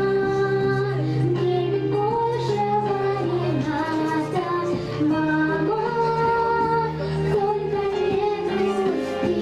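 A girl singing a melodic song with instrumental accompaniment, her voice holding and gliding between notes over steady low accompanying notes.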